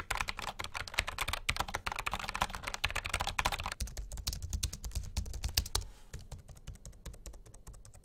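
Fast typing on a Logitech MX Mechanical keyboard with tactile quiet (brown) switches, giving deeper clicks. About four seconds in it changes to typing on the low-profile Logitech MX Keys, whose clicks are quieter and much higher, like raindrops on glass.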